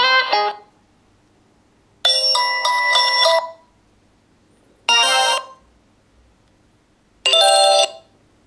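Nokia X7 stock phone tones played one after another: four short electronic chimes, each a different little melody lasting under a second to about a second and a half, with about a second of silence between them.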